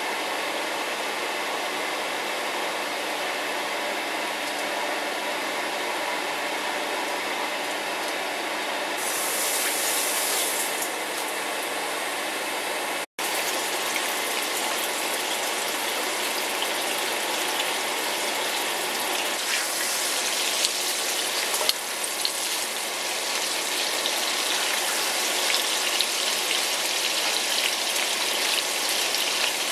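A steady hiss while oil heats in a nonstick wok over high heat. After a short break about halfway through, whole shell-on shrimps fry in the hot oil with a steady sizzle and crackle, and a spatula scrapes and turns them now and then.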